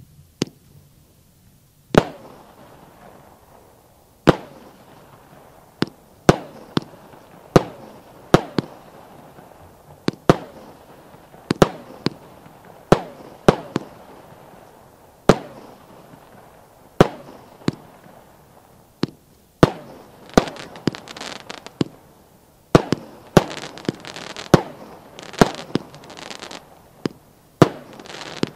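A 36-shot fireworks battery (cake) firing its shots: a long string of sharp bangs, about one a second, starting about two seconds in. In the last third a hissing wash fills the gaps between the bangs.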